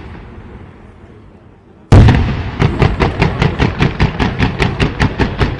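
Fireworks: the rumble of a shell burst fades out, then a loud bang with a long rumble about two seconds in. A rapid, even run of sharp pops follows, about five a second.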